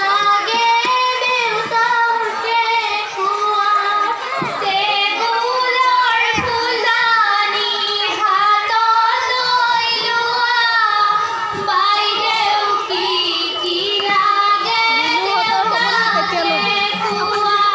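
A group of girls singing an Assamese biya naam, a traditional wedding song, together into stage microphones. The voices are amplified and carry on without a break.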